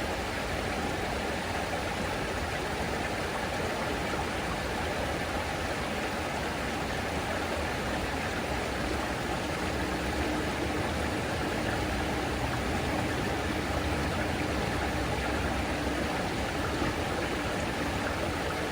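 Water pouring over a waterfall, a steady, unbroken rush.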